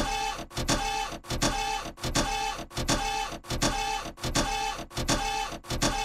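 Rhythmic mechanical chugging, one short cycle with a click repeating evenly about twice a second.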